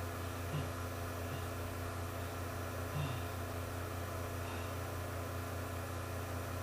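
Steady low hum with hiss, with faint brief sounds about half a second and three seconds in.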